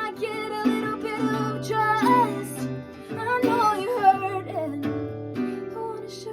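Song outro: guitar with a wordless sung melody over sustained chords, the music dying away near the end.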